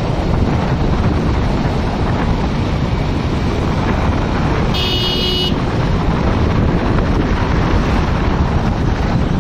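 Steady wind buffeting the microphone over road and vehicle rumble, with a short high-pitched vehicle horn toot about five seconds in.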